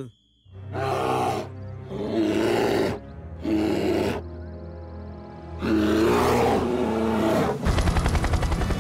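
Cartoon bear roaring and growling, a series of long roars over background music. Near the end a helicopter's rotor comes in with a rapid, even chop.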